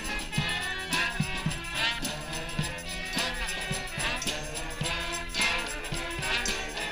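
Brass street band playing an upbeat tune, horns over a steady percussion beat of about two hits a second.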